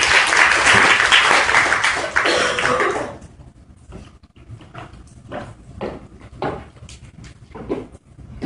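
Audience applauding at the end of a talk, stopping about three seconds in and leaving scattered quieter room noises.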